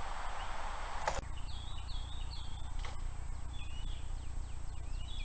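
A sharp click about a second in, then birds chirping in short repeated calls over a low steady hum. Before the click there is a steady hiss with a few light clicks.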